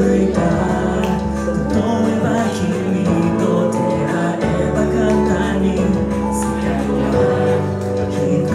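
Music: a man singing a Japanese anime song into a microphone over instrumental accompaniment, with long held bass notes underneath.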